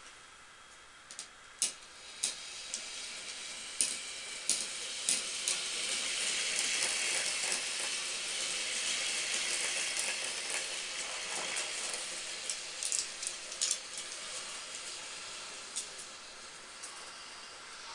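Marbles rolling along a plastic marble-run track: a rolling rumble that builds a few seconds in, is loudest in the middle and slowly fades, with scattered sharp clicks of marbles knocking against the track.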